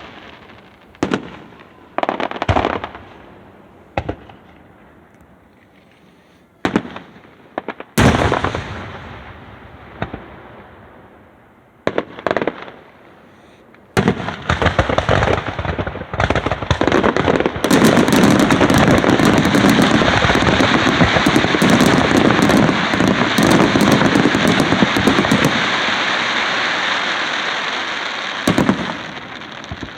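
Aerial fireworks: a handful of separate bangs from shell bursts, the loudest about eight seconds in, then from about halfway a dense run of rapid crackling bursts that holds for about ten seconds and slowly fades, with one more bang near the end.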